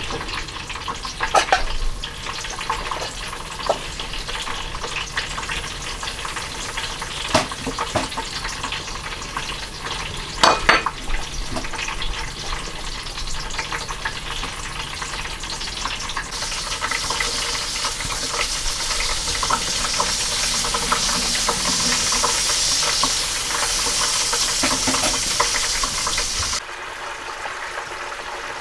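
Hands working raw minced meat with chopped onion and spices in a ceramic bowl: scattered light taps and clicks at first, then a denser wet squishing that stops abruptly near the end.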